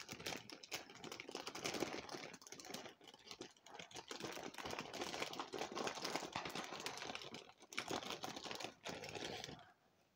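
Plastic fidget toys and crinkly plastic bags being rummaged through in a plastic storage bin: a dense run of rapid clicks, rattles and rustling that stops about nine and a half seconds in.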